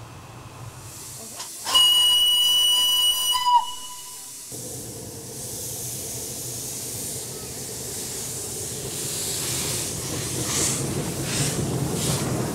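Steam whistle of a small home-built narrow-gauge steam locomotive giving one steady blast of about two seconds that sags in pitch as it cuts off. Then the locomotive runs with steam hissing, the sound slowly growing louder as it passes.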